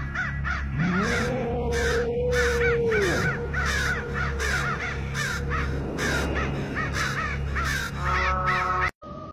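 A large flock of American crows cawing over one another in a dense, continuous chorus, over a music track with a steady low pulsing bass. The sound cuts off abruptly near the end.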